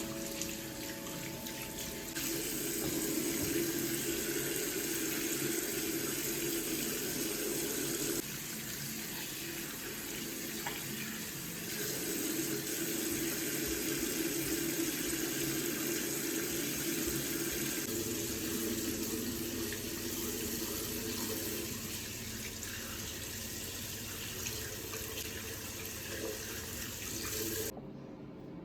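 Water running steadily from a tap. The flow shifts a few times and stops abruptly near the end.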